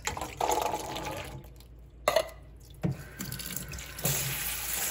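Canned chickpeas and their liquid being poured from the can into a colander in a sink, splashing at first, with a couple of sharp knocks midway. Then, from about four seconds in, the faucet runs steadily onto the beans to rinse them.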